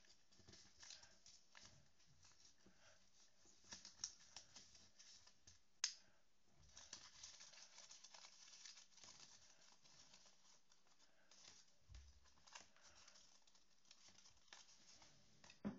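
Faint rustling and crinkling of folded paper being handled and pulled into shape as an origami Christmas tree, with small ticks throughout and one sharp tick about six seconds in.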